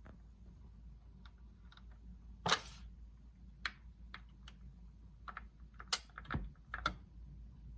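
Irregular mechanical clicks and knocks from a BSR C129R record changer, about a dozen over several seconds, the loudest about two and a half and six seconds in.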